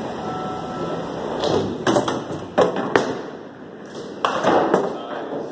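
Bowling alley din with several sharp, hard knocks between about two and four and a half seconds in, the clack of bowling balls and pins.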